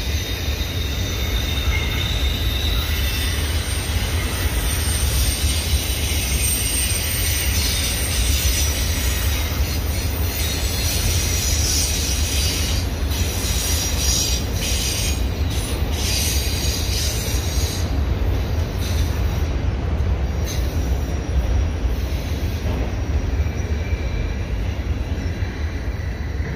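A freight train of multilevel autorack cars rolls past with a steady rumble of steel wheels on rail and a high wheel squeal. A run of clicks and clanks comes through the middle.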